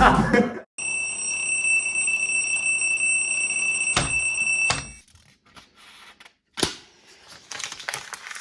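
An electronic alarm sounds a steady high tone for about four seconds, then cuts off suddenly. A sharp click and some soft rustling follow.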